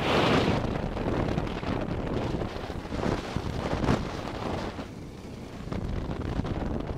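Wind buffeting the microphone with a Honda Transalp's V-twin engine running underneath. The rushing is strongest at the start and eases about five seconds in.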